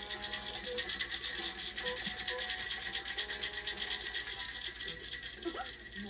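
Jingle bells shaken steadily, a continuous bright jingling.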